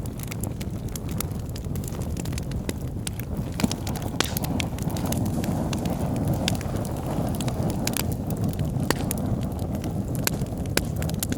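Wood logs burning in a fireplace: a steady low rumble of flames with frequent, irregular sharp crackles and pops.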